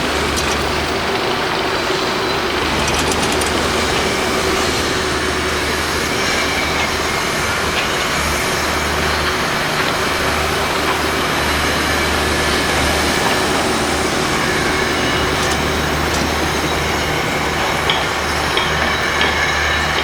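Construction-site noise: heavy machinery running steadily, with scattered metallic clicks and knocks.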